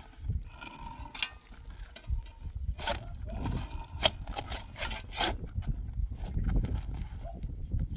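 Steel shovel stabbing and scraping into dry, stony soil, with sharp clinks and scrapes, the loudest strikes coming between about three and five seconds in, over a low rumble.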